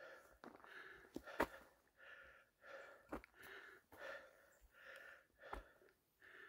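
Faint, heavy breathing of a hiker climbing a steep trail, in and out in a steady rhythm about once a second. A few sharp knocks of footsteps on the rocky path come between the breaths.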